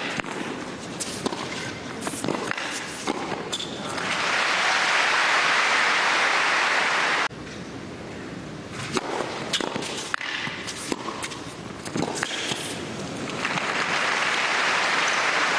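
Tennis rally, the ball struck back and forth by rackets, then a crowd applauding for about three seconds before the applause cuts off suddenly. A second rally of racket strikes follows, ending in applause again near the end.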